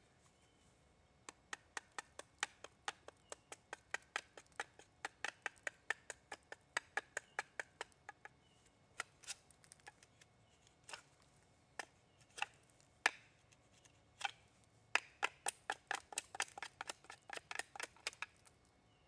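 A wooden baton striking the spine of a Silver Fox Bushcraft Knife, driving the blade into a wooden spoon blank: sharp taps at about three a second, then a few single, heavier strikes, then another quick run of taps near the end.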